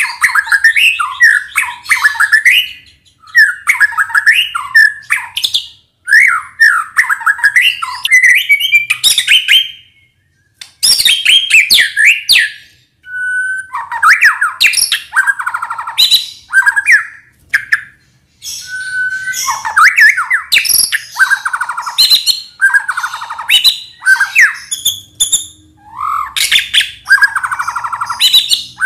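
Male white-rumped shama singing a loud, varied song of rapid whistles and chattering notes, in phrases a few seconds long broken by short pauses.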